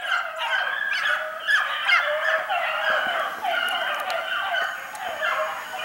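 A pack of beagles baying continuously, several voices overlapping in falling-pitch bawls: hounds in full cry on a rabbit's track, running it without a check.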